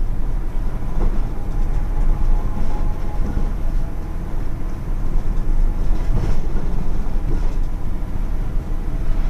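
Interior of a moving bus: steady low engine and road rumble, with a couple of light knocks or rattles.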